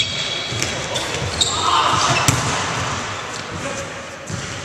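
Live basketball play in a large echoing sports hall: the ball bouncing on the wooden court with sharp knocks, sneakers squeaking briefly, and players' voices calling out.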